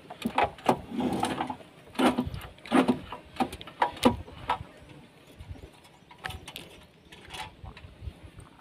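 Spinning reel being handled and cranked, giving a run of irregular clicks and rattles that thin out about halfway through.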